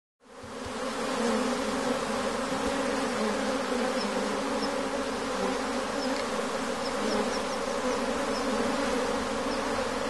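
Mass of honeybees buzzing in a dense, steady hum that fades in at the start, with a few faint high chirps in the middle.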